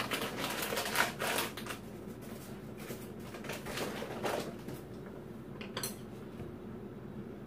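Tableware clinking at the table: chopsticks and dishes giving a scatter of light clicks and knocks, busier in the first couple of seconds, with a sharp click near six seconds.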